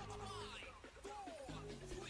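Background music with held bass notes and a gliding melody line.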